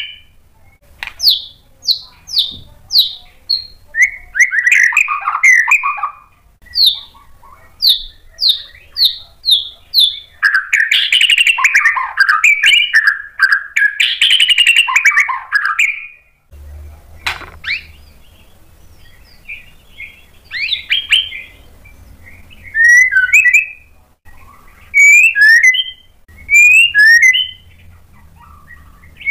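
White-rumped shama (murai batu) singing. Strings of clear whistled notes fall in pitch at about two a second, mixed with dense warbled runs, and give way in the last third to short repeated chirp phrases. A single sharp click sounds a little past halfway.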